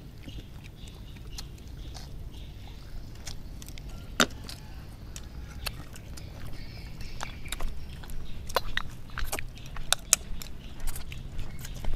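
People eating from bowls: scattered light clicks and knocks of chopsticks and bowls over a low steady rumble, the clicks coming more often in the second half.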